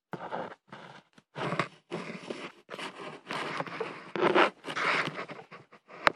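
Handling noise on a phone's microphone: irregular scraping and rubbing in short bursts as the phone is picked up and moved, with a sharp click near the end.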